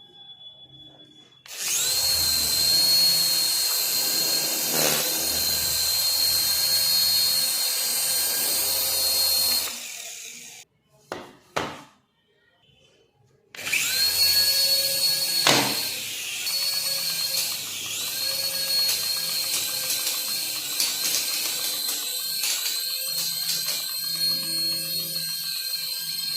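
Small electric motor of a remote-control toy whining at high speed. It spins up about a second and a half in, stops near ten seconds, and after two clicks spins up again about fourteen seconds in. Background music plays underneath.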